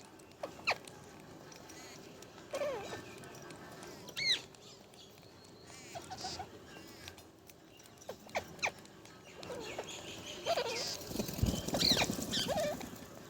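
A parrot giving short squeaky chirps and whistles every second or two, some rising and falling in pitch. About eleven seconds in there is a louder stretch of rustling that is the loudest sound here.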